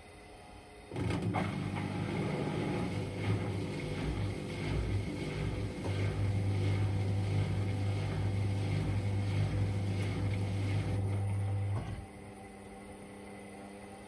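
Indesit IWDD7143 washer dryer in its cotton-dry tumble cycle: about a second in, the drum motor starts turning the drum with a loud, steady low hum and uneven tumbling, then stops abruptly near the end, leaving the quieter steady hum of the drying fan.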